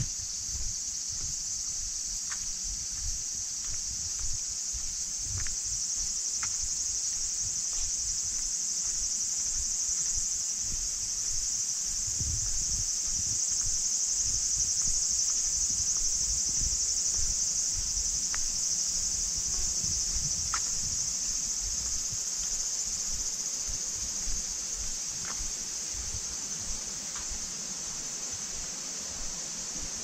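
A steady, high-pitched chorus of insects buzzing without a break in summer woodland.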